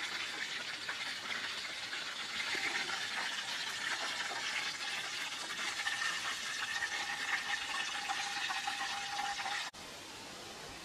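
Whole chickens deep-frying in a pan of hot oil: a steady, dense crackling sizzle. It cuts off suddenly near the end, giving way to a quieter steady background hiss.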